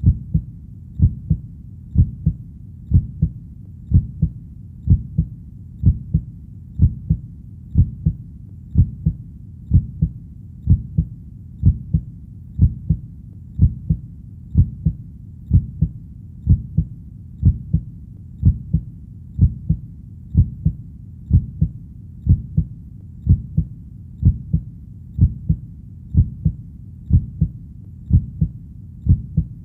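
Heartbeat sound beating steadily at a slow, even pace. Each beat is a low double thump (lub-dub), coming about once a second.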